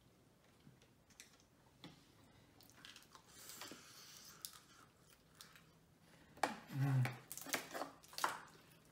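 Boiled crab leg shells being cracked and snapped open by hand, with soft chewing and mouth sounds. The cracking is faint at first and gets louder and more frequent in the last few seconds. A short murmur of a voice comes about seven seconds in.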